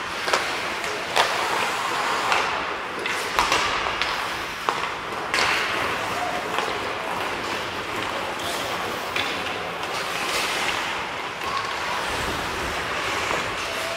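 Ice hockey play: skates scraping on the ice, with sharp clacks of sticks and puck, several of them in the first half.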